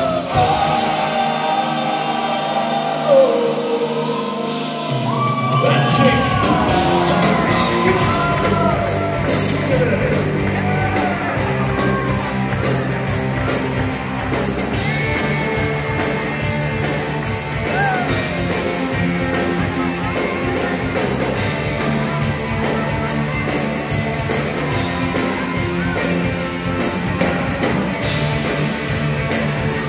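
Live pop-rock band playing a shuffle, with lead singing over the band. The bass drops out for the first few seconds, then the full band comes back in with a steady drum beat.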